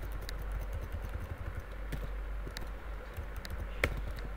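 Occasional single key presses on a computer keyboard, a few scattered clicks with a sharper one near the end, over a steady low hum.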